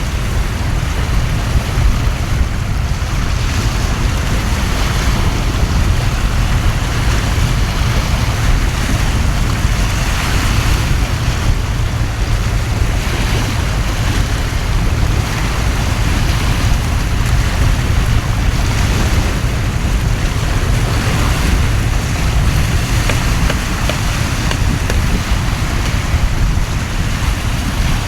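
Storm at a harbour: a heavy downpour and wind making a steady hiss, with gusts buffeting the microphone as a constant low rumble.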